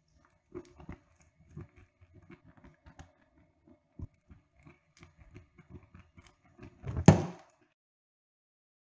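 Irregular soft clicks and taps of hands handling a small glass dish and lumps of burning alcohol gel, with one louder knock a little after seven seconds.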